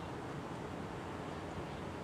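Steady outdoor background noise, an even low rumble and hiss with no distinct events.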